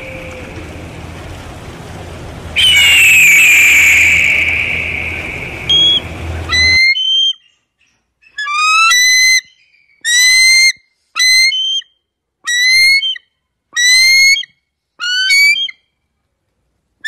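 A bird of prey calling: first one loud whistled call that slides downward, over a steady high drone; then, after an abrupt cut about seven seconds in, a series of about seven short whistled calls, each sliding slightly upward, about one a second.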